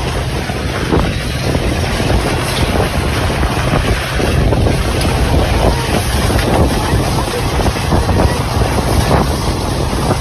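Strong tornado wind buffeting the microphone: a loud, continuous rush of noise with a heavy low rumble that flutters unevenly.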